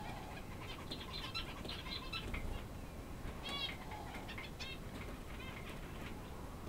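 Small birds chirping: short high calls in scattered runs, with a couple of arched calls around the middle.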